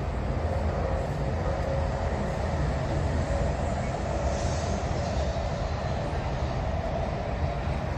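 E956 ALFA-X Shinkansen test train running past on the elevated track, a steady rumble with a faint hum through it, heard from high above through a window.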